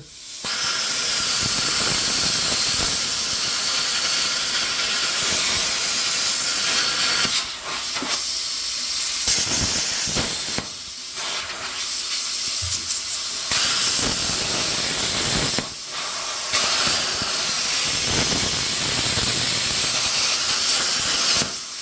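Arccaptain Cut50 50-amp plasma cutter torch hissing steadily as it cuts holes through square steel tubing, the hiss dipping briefly a few times along the way.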